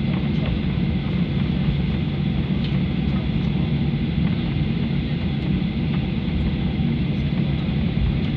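Boeing 737-800 cabin noise while taxiing: the steady low rumble of its CFM56 engines at low thrust, with a faint high whine above it, heard from inside the cabin.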